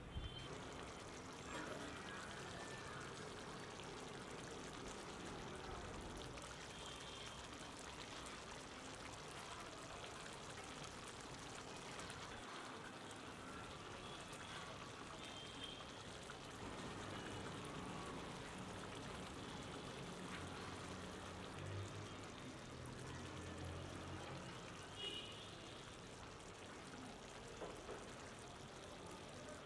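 A faint, steady watery sound of liquid, with a low hum joining for a few seconds past the twenty-second mark.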